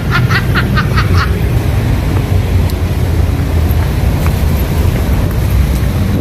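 Steady traffic rumble from a busy road, heavy in the low end. A rapid run of high chirps, about six a second, runs on from before and stops about a second in.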